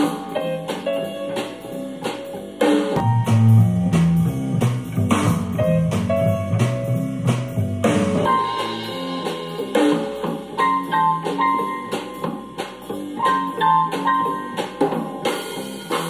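A song with guitar and drums played back through small Tangband W2-2243S back-loaded horn speakers, and recorded from in front of them. About halfway through, the playback switches abruptly to a pair of all-aluminium double bass reflex speakers, then switches back to the small pair at the very end.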